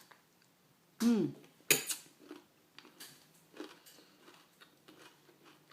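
A spoon clinking against a bowl of granola: one sharp clink a little under two seconds in, then light taps, scrapes and rustles. A short murmur from a voice just before the clink.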